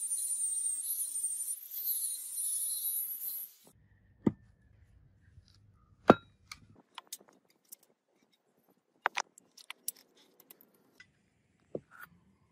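Angle grinder grinding the edge of a steel axe head, a high whine that wavers as it is pressed, cut off about four seconds in. After it come scattered sharp clicks and knocks of the steel axe head being handled on a wooden stump, the loudest about six seconds in.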